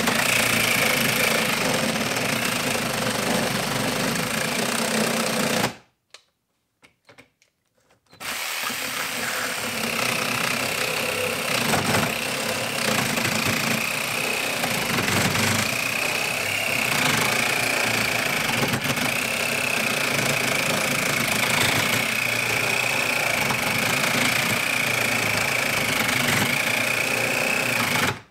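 A TackLife 12-volt cordless mini reciprocating saw with a 12-inch pruning blade cutting into a thick block of wood: a steady motor whine over the rasp of the blade. It stops for about two seconds, about six seconds in, then runs steadily again and cuts off just before the end.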